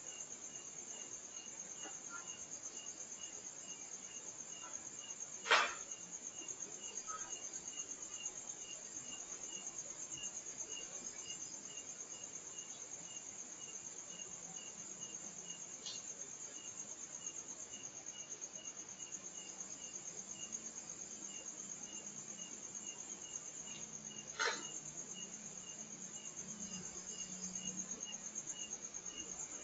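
Night insects, crickets, trilling steadily, with a second insect chirping evenly two or three times a second. Two sharp knocks, like something being struck, break through: one about five seconds in and one about twenty-four seconds in, with a fainter click between them. A faint low drone comes in during the second half.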